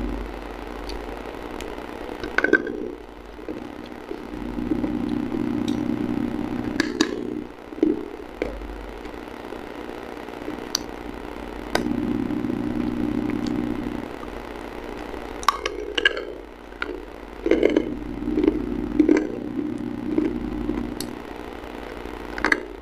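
Close-miked biting and crunching of hard, brittle mineral pieces, with a sharp crack every few seconds and a cluster of crunches in the last third. A steady low whirring hum comes and goes underneath.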